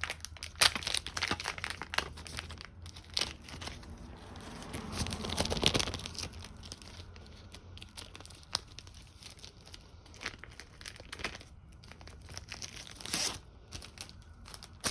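Packaging being torn open by hand: crinkling, rustling and tearing. It is busiest in the first half, with a louder rip about five to six seconds in, then sparser crackles and one sharp crackle near the end.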